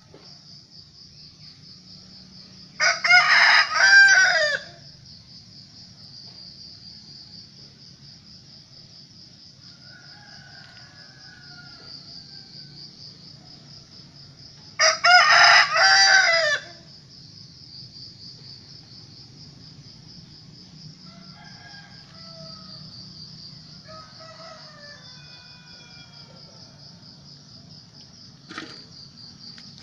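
Domestic rooster crowing twice, each crow just under two seconds, about twelve seconds apart, over a steady high insect trill.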